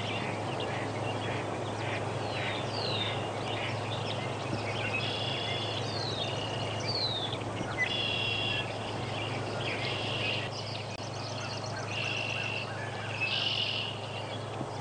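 Frogs calling in a wetland chorus: many short calls repeated and overlapping throughout, with a few quick downward-sliding calls in between.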